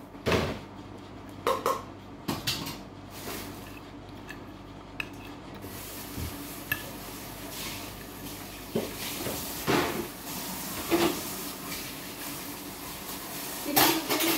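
A metal spoon clinking and scraping against a plate while scooping rice, a few scattered clinks at uneven intervals.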